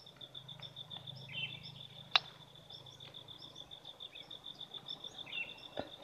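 An insect's steady, fast-pulsing high trill with small bird chirps repeating around it, and one sharp click about two seconds in.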